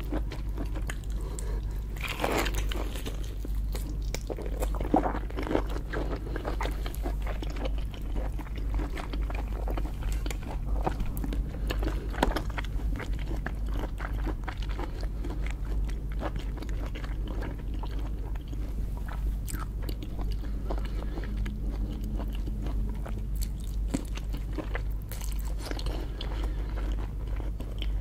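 A person chewing and biting lobster, with many small clicks and several louder crunches, over a steady low hum.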